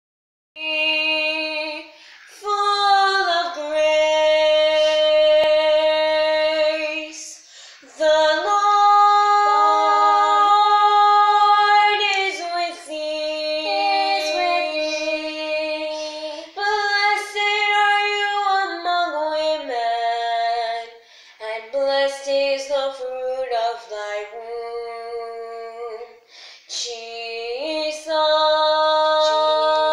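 Two girls singing together unaccompanied, a slow song in long held notes with short breath pauses between phrases.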